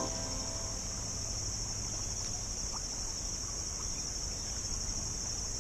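Insects chirring in a steady, high-pitched, unbroken chorus, over a low outdoor hiss.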